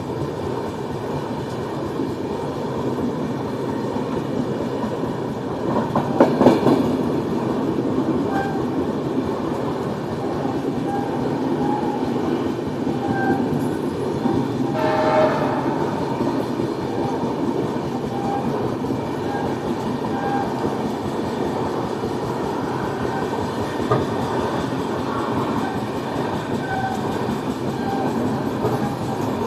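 Passenger train running along the track with a steady rumble and clickety-clack of the wheels, and a short horn blast about halfway through.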